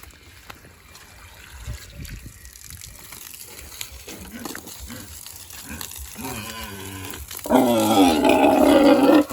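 Pigs calling: a few quieter calls from about four seconds in, then one loud long call lasting nearly two seconds near the end.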